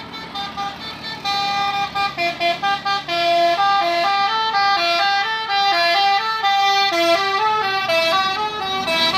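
Bus telolet horn of the basuri kind playing a tune: a quick run of short tooted notes, then a melody of longer notes stepping up and down.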